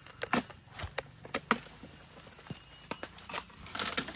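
A dodos, the chisel blade on a long pole used to harvest oil palm, jabbing at the stalk of a fruit bunch high in the palm. It makes a string of sharp, irregularly spaced knocks, and near the end there is a brief rustling burst.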